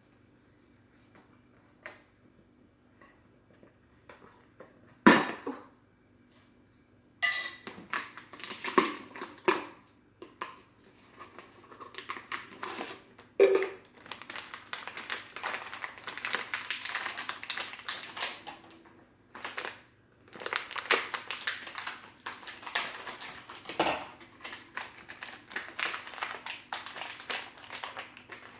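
A sharp snap about five seconds in, then long stretches of irregular dry crunching as a crisp vanilla wafer cookie is bitten and chewed.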